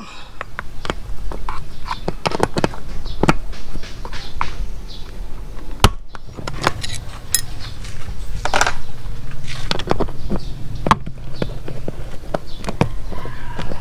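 Steel wrenches clinking, scraping and knocking on a motorcycle's 10 mm seat bolts as they are worked loose, a run of short irregular clicks and knocks. The bolts are stiff on their first removal.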